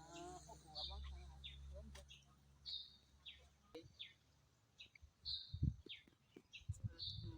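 Wild birds calling, faint. One bird gives a short, high, slightly falling call about every two seconds, each followed by a few quicker, lower notes.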